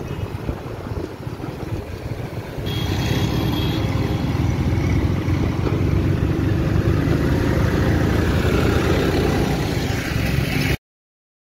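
Diesel tractor engine running as a tractor pulls its trailer along a busy road, mixed with passing traffic noise. The sound jumps louder about three seconds in and cuts off abruptly near the end.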